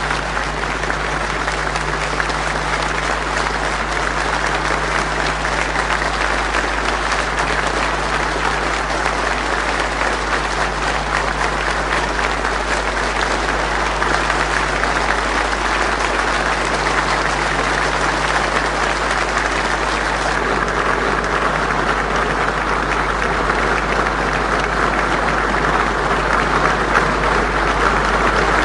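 A large hall audience applauding steadily and without a break: a standing ovation greeting the speaker just announced. A steady low hum from the old recording runs underneath.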